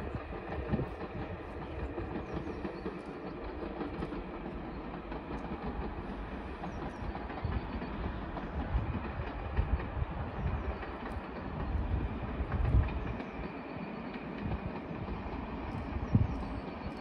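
Steam-hauled passenger train rolling across a viaduct: a steady rumble and clatter of carriage wheels on the rails, swelling with a deeper rumble around the middle.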